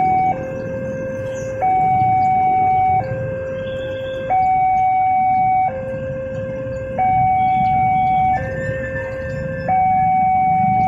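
Electronic two-tone warning alarm of a railway level crossing, alternating between a lower and a louder higher tone about every second and a half, sounding while the barrier is down to warn of an approaching train.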